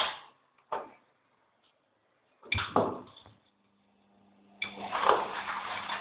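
Front-loading washing machine with laundry tumbling in the drum: two sharp knocks, then a clatter a couple of seconds in, then the motor starts a steady hum and the tumbling wash rumbles on from about halfway.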